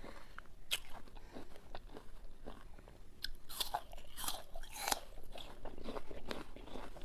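Crisp crunching as a raw apple is bitten and chewed, with the loudest run of crunches about halfway through.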